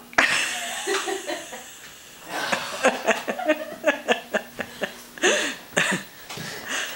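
People laughing and chuckling in short bursts, from about two seconds in until near the end, with a sharp click at the very start.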